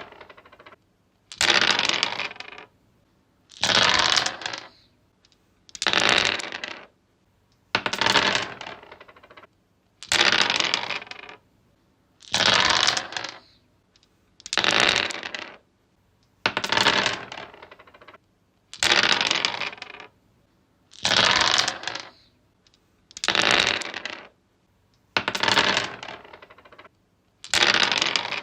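Dice rolled again and again on a wooden tree surface: about thirteen separate clattering rolls, one every two seconds or so, each rattling for about a second and dying away.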